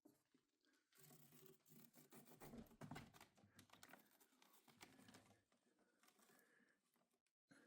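Faint, irregular scratching and rustling, loudest about three seconds in, fading away near the end.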